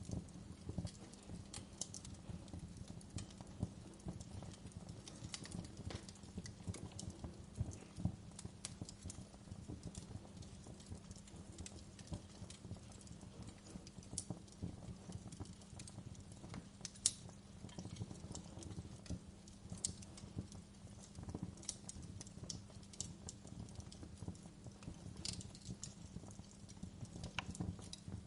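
Wood fire in a fireplace crackling, with a dense run of small irregular pops and snaps and a few sharper louder pops, the strongest about seventeen seconds in.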